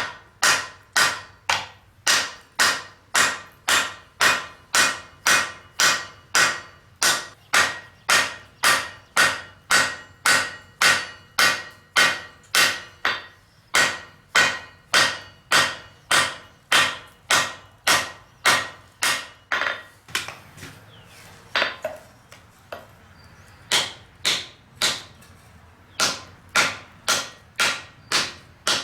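Blacksmith's hammer forging steel bar stock on an anvil: steady blows about two a second, each with a metallic ring. About two-thirds of the way through the rhythm breaks off for a few seconds, leaving a couple of lone strikes, then the steady hammering resumes.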